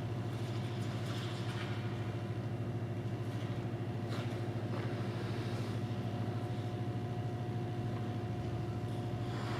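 Ice rink ambience: a steady low mechanical hum with a fixed higher tone, and a few faint, brief scrapes of skate blades on the ice.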